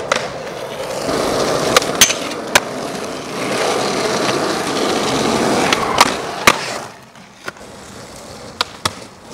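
Skateboard wheels rolling over rough asphalt, with several sharp clacks of the board hitting the ground. The rolling drops away and turns quieter about seven seconds in.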